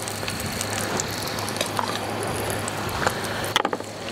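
Prime rib roast sizzling on a wire rack in a hot cast-iron camp Dutch oven: a steady crackling hiss that drops away about three and a half seconds in.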